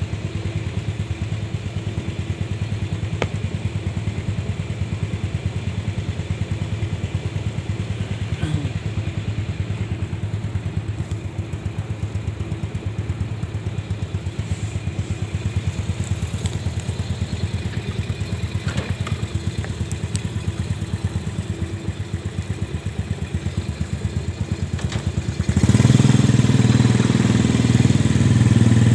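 Motorcycle engine idling steadily with a fast, even pulse. Near the end it suddenly gets louder as the bike is ridden off under throttle.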